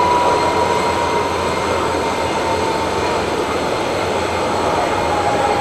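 Jet airliner on the apron: a steady rush of engine noise with a thin high whine that slowly drops in pitch.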